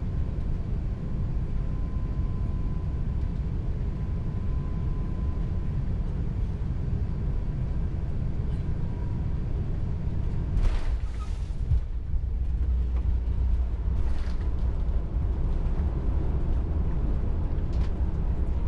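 Airliner cabin noise in an Airbus A350 on final approach: a steady low rumble of engines and airflow. A couple of brief knocks come about ten to eleven seconds in, and the rumble grows somewhat louder from about twelve seconds in.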